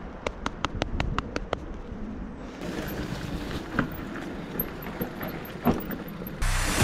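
Mountain bike's freewheeling rear hub ticking in fast, even clicks for the first second and a half, then the low rumble of the bike moving over the trail with a few knocks. Loud music comes in near the end.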